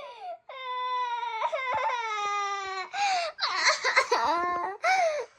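A girl's frightened, wordless wailing at the sight of a spider: one long, high cry that slowly falls in pitch, then several shorter shrieks near the end.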